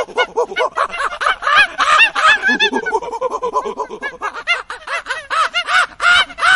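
A chorus of animal calls: many short, rising-and-falling squealing calls overlapping in quick succession.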